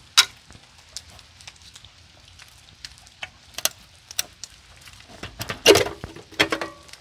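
Scattered clicks and light metallic clinks from gloved hands working the ring and seal of an electric meter. A denser run of clinks, some with a short metallic ring, comes about five to six seconds in.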